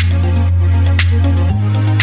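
Electronic background music with a steady beat: a sharp hit about once a second and lighter ticks between, over a deep held bass note that changes about one and a half seconds in.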